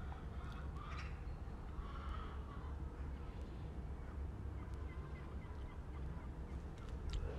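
Steady low outdoor rumble with a few faint bird calls, and a couple of sharp clicks near the end.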